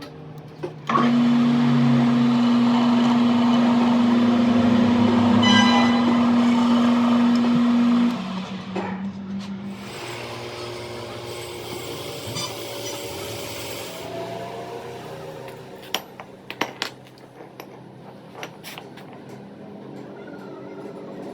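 An electric power tool's motor running loudly with a steady hum for about seven seconds, then cutting off. A quieter steady running sound follows, with a few sharp knocks near the end.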